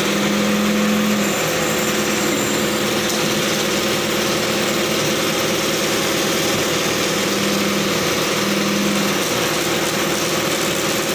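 Crane truck's engine running steadily while the truck-mounted crane is worked, with a low hum that cuts in and out about four times.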